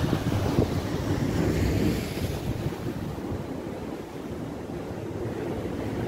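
Sea waves breaking and washing through a narrow rocky gully, with wind buffeting the microphone. The surf's hiss is strongest in the first couple of seconds, then eases.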